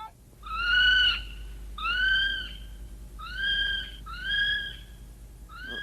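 Bird-call sound effect: four drawn-out, slightly arched calls about a second apart, with a fifth starting near the end.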